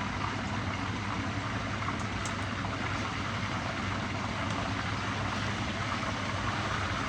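Fish pan-frying in hot oil, a steady sizzle, over a steady low hum.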